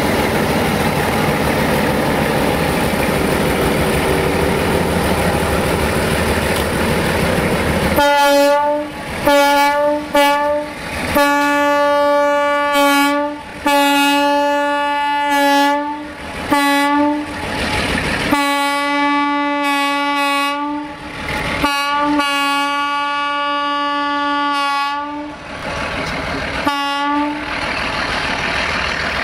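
Freight wagons rolling past with steady rail noise, then a diesel locomotive's horn sounding a long series of short and long blasts on one steady note.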